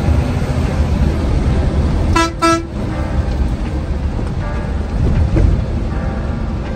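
Steady low engine and road rumble of a moving bus. A little over two seconds in, a vehicle horn gives two short toots in quick succession.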